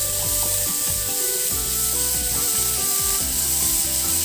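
Wooden spatula stirring and scraping grated carrot and onion around an oiled nonstick frying pan, with a steady sizzle of the vegetables frying.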